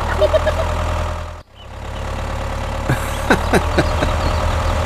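Tractor engine idling steadily with a low, even hum. It cuts out suddenly for a moment about a second and a half in, then runs on, with a few sharp clicks about three seconds in.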